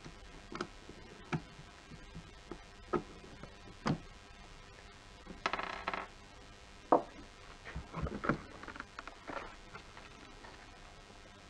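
Scattered clicks and knocks of a screwdriver and hands working on a Mercedes W212 steering wheel's plastic trim on a wooden tabletop. There is a short rattle about halfway through, followed by a few louder knocks as the wheel is handled.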